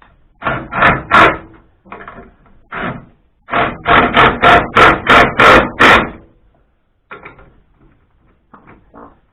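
Hammer blows driving a steering rack mounting into tight new polyurethane bushes. A few blows come about half a second in, then a quick run of about ten harder blows, four or five a second, from about three and a half seconds, with a few light knocks near the end.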